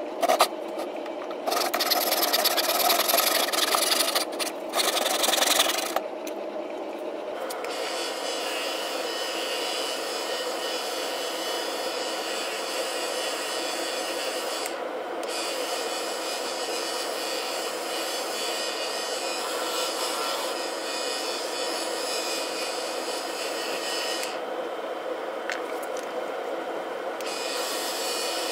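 Bench-top wood lathe running with a steady motor hum while sandpaper rubs on the spinning wooden hammer-handle blank. The sanding hiss breaks off briefly twice, the second time for a couple of seconds near the end. The first six seconds or so hold a louder, harsh rasping noise.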